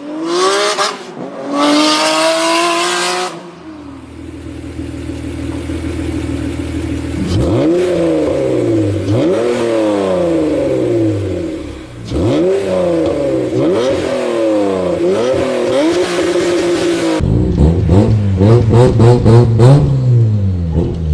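Japanese sports-car engines revved in turn: two quick rising revs, a few seconds of steady idle, then a long run of repeated throttle blips, each rising and falling. Near the end a deeper engine revs hard with a rapid crackle of sharp pops.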